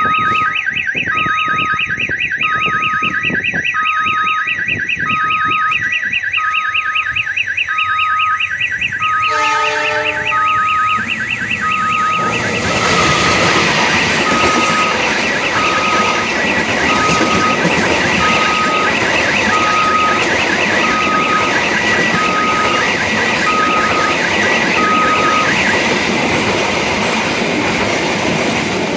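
Railway level-crossing warning siren with a fast electronic warble and a short beep about once a second, sounding like an odong-odong ride siren. About ten seconds in, a train horn sounds for about a second. Then a train passes over the crossing, its rumble and wheel clatter running on after the siren stops near the end.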